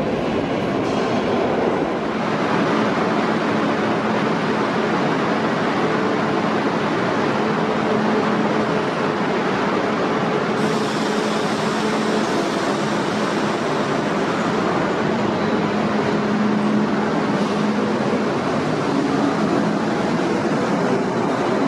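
R42 subway cars hauling a garbage work train, running out of the station with a steady rumble of wheels on rail and a low hum.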